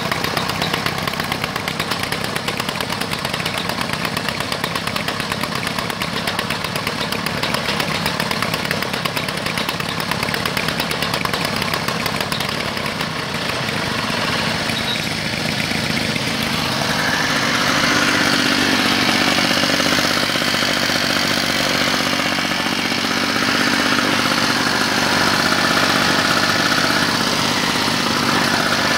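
Classic Victa two-stroke lawn mower engines running, loud through their mufflers, with a fast, even firing beat. About halfway through the sound changes to a smoother, slightly louder drone.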